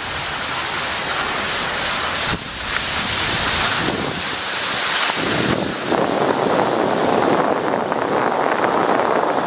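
Skis sliding over packed snow with a steady hiss and scrape, mixed with wind on the microphone.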